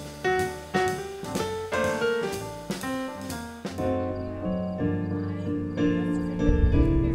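Jazz piano playing a run of struck notes; about four seconds in it changes to held chords, and a bass line comes in near the end.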